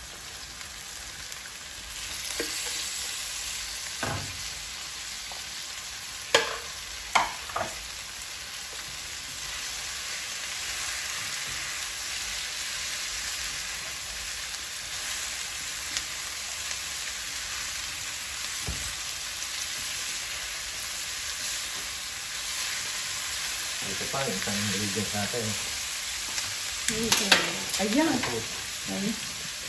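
Diced pork and tofu sizzling as they fry with onion and chili in a nonstick pan, the sizzle getting louder about two seconds in once the meat and tofu are tipped in. A spatula stirs them, with a few sharp knocks against the pan and more clatter and scraping near the end.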